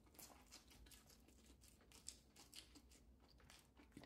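Near silence with faint, irregular soft clicks of someone chewing food with his mouth closed.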